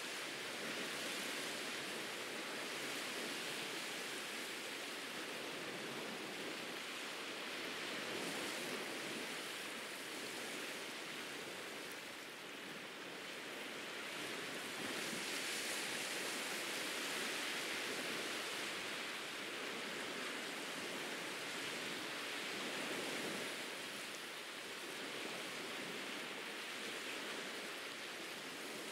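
Ocean waves washing onto a beach: a steady rushing hiss that swells and eases slowly.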